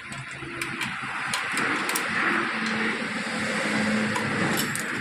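A motor vehicle passing outside, its noise swelling and then easing, with scattered small clicks of bicycle parts being handled and fitted.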